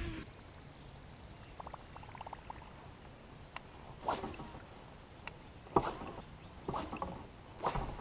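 Water sloshing and splashing around a fishing kayak, with several separate splashes in the second half and a short run of rapid clicks about two seconds in.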